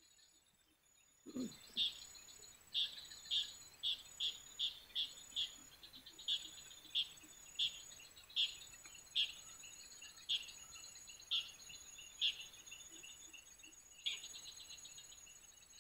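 Evening insect chorus: a steady high whine, with a run of short, sharp chirps repeating every half second to a second, starting about a second in.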